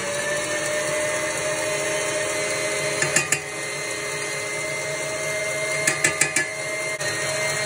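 Tilt-head stand mixer running steadily on high speed, its motor whining as the wire whisk whips egg whites toward stiff peaks. A few sharp clinks come about three seconds in and again about six seconds in.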